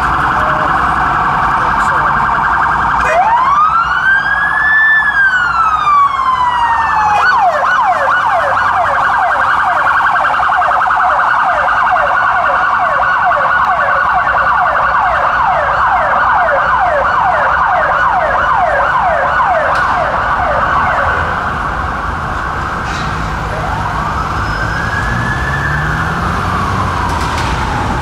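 Two UK police sirens, a Whelen Alpha and a Redtronic, sounding together on a police van and an unmarked police car. A fast-pulsing priority tone runs throughout. Over it the other siren wails, rising and falling once, switches to a fast yelp about seven seconds in, and goes back to a wail near the end.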